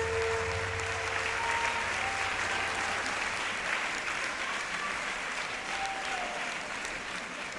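Audience applauding, the clapping easing off gradually toward the end, after the last held note of the waltz music dies away at the start.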